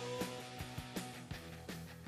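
Background music: an upbeat rock-and-roll instrumental passage with guitar and a steady drum beat, growing quieter as it fades out.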